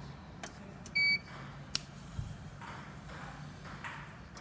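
Keithley 2000 bench multimeter being switched on: a click of the power button, then one short high beep from the meter about a second in as it powers up, followed by another sharp click.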